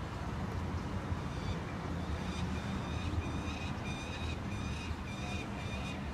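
Birds calling: a quick series of short, high repeated calls, about three a second, starting a second or so in, over a steady low rumble.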